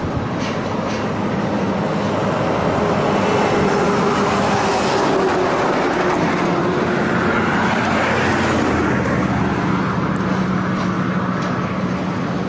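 A vehicle passing with a steady rumble, its tones sliding down in pitch as it goes by about two-thirds of the way through.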